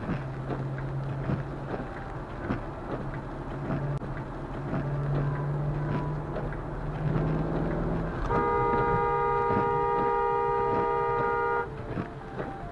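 Car driving on a wet highway with steady road and tyre noise, then a car horn held in one steady blast of about three seconds, starting about eight seconds in.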